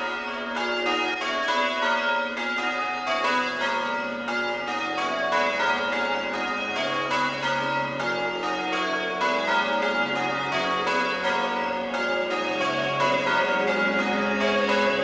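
A ring of eight English change-ringing bells being rung full circle, the bells striking one after another in a steady, even rhythm, their tones overlapping and ringing on.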